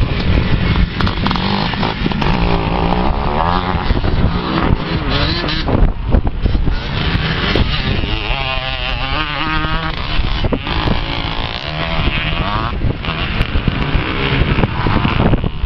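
Several off-road racing motorcycles running on a scramble course, engines revving hard and easing off again and again, so the pitch keeps rising and falling.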